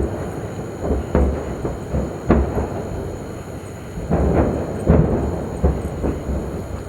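Distant propane cylinders exploding in a burning fire: about half a dozen sharp booms at irregular intervals over a low, steady rumble.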